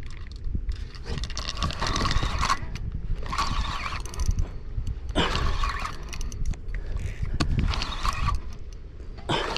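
Fishing reel being cranked in repeated bursts, its gears whirring, while a big blue catfish is reeled in against its pull. Steady low wind rumble runs underneath.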